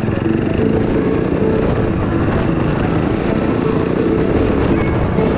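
A two-wheeler's engine running steadily while it is ridden along a road.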